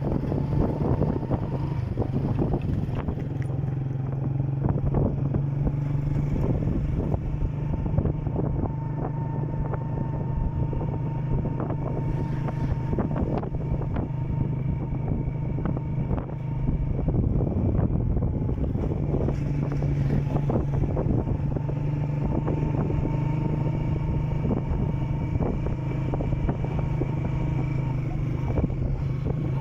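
Small motorcycle engine running at a steady cruising speed, heard from the rider's seat, with frequent knocks and rattles from the bumpy road. It eases off briefly about halfway through and then picks up again.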